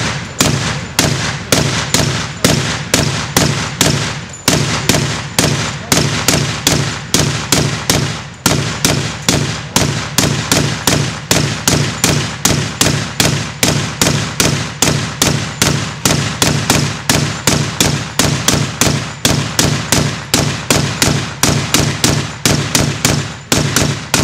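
Hand-cranked Gatling gun firing a long, steady string of rapid shots, about three to four a second, with brief breaks about four and eight seconds in.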